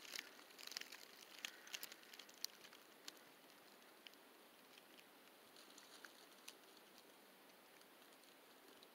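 Faint, scattered crackles of dry leaves, thicker in the first three seconds and then thinning to near silence: a nine-banded armadillo rooting through oak leaf litter.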